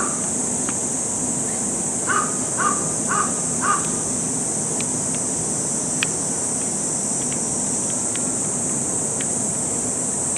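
A crow cawing four times in quick succession, over a steady high-pitched drone of summer insects. A few faint sharp clicks follow later.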